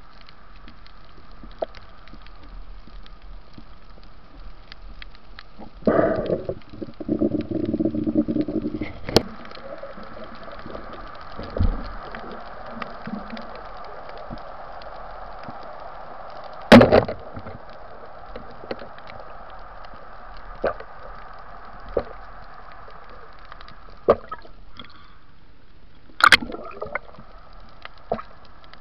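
Underwater ambience heard through an action camera: a steady hiss, a few seconds of gurgling bubbles about six seconds in, and scattered sharp knocks, the loudest about seventeen seconds in and another cluster near the end.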